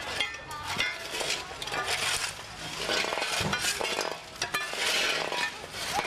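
Several metal shovels scraping and chipping at packed ice on paving stones: overlapping scrapes with frequent sharp clinks and knocks.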